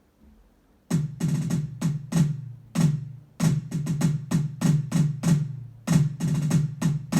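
High tom pad of an electronic drum kit struck repeatedly in a quick rhythmic pattern, about twenty hits in short groups, starting about a second in. Each hit is a short pitched drum tone that dips slightly in pitch as it fades.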